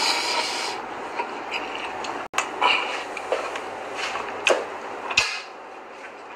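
A series of sharp knocks and clatters, about half a dozen, over a steady hiss.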